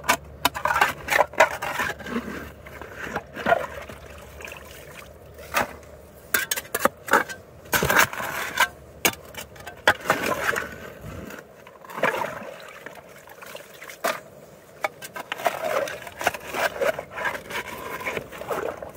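Shovel digging into river gravel: irregular scraping and crunching of the blade against stones, with frequent sharp knocks.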